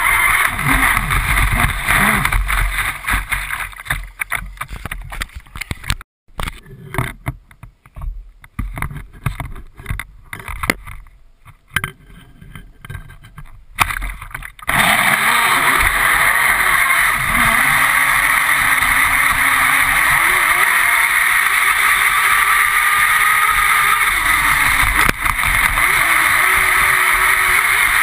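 Radio-controlled speedboat running across choppy water, heard from a camera on its deck: a steady rush of water and wind over the hull. From about four seconds in the sound drops and breaks into irregular splashes and gaps for around ten seconds, then the steady rush returns, with a faint motor whine rising and falling near the end.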